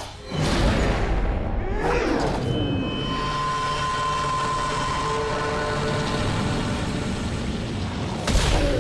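Dramatic film score with held tones over a low rumble, a deep boom just after the start and a whoosh about two seconds in, ending in a sudden loud hit as a sword is swung.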